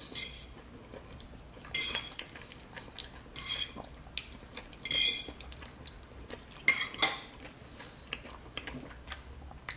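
Metal fork clinking and scraping against a plate, several short sharp clinks spread a second or two apart, the loudest about halfway through.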